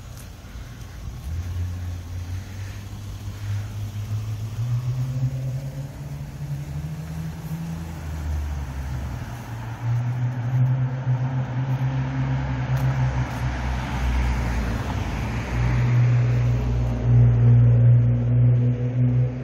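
Road traffic passing along a town street: a low engine hum that rises in pitch about a quarter of the way in, with tyre noise swelling midway and the vehicle sound loudest near the end.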